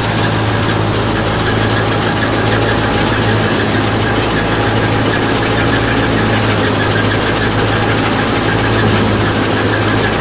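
Belarus 510 tractor's diesel engine running at a steady speed, driving a wheat thresher through its PTO shaft, with the thresher's drum and belts running alongside in one loud, unbroken mechanical drone.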